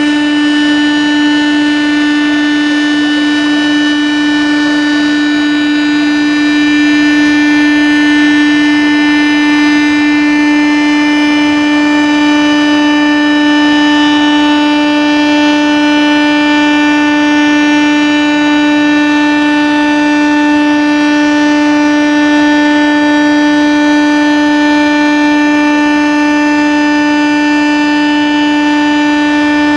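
A signal horn sounding one long, unbroken blast at a steady pitch, the signal that accompanies a ship being launched down the slipway.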